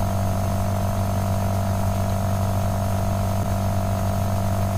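Steady electrical mains hum, a constant low drone with a buzzier overtone that does not change.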